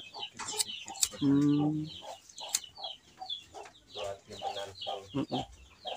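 Chickens clucking and chirping repeatedly in the background, with a brief low hum about a second in.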